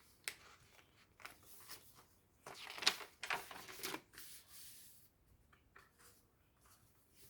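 Paper rustling and light handling noises as the pages and paper inserts of a handmade junk journal are moved and turned, with the busiest, loudest rustle about three seconds in.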